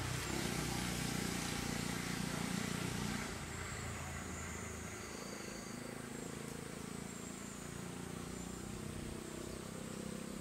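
Handheld smoke firework hissing steadily as it burns, dropping noticeably quieter about three seconds in as the smoke output thins. Faint high chirps of insects over it.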